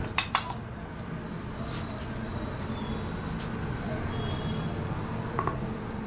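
A short, high electronic beep with a few clicks from the Honeywell Impact analog video door phone's indoor screen as one of its buttons is pressed. A low, steady hum follows.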